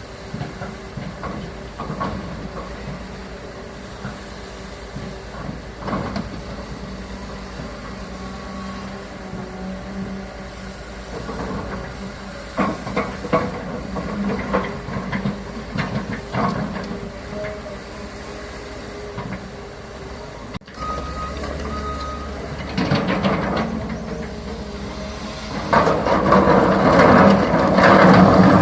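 CAT 320 hydraulic excavator's diesel engine running steadily under work, with scattered clanks and knocks. The sound gets louder, with dense rattling and scraping, from a couple of seconds before the end.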